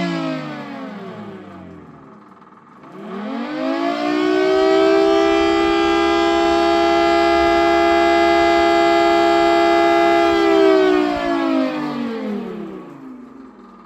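3D-printed scale model of a Federal Signal Thunderbolt 1000T tornado siren, its rotor spun by a DC motor with a shop vacuum blowing air through it. It winds down to a low growl, winds back up over about a second and a half, and holds a steady two-toned wail for about six seconds. It then winds down again near the end.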